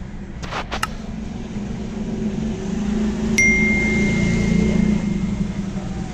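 A single clear electronic bell ding that rings and fades over about two seconds, the notification-bell sound effect of a subscribe-button animation. It is preceded by a few quick clicks early on and sits over a low steady hum.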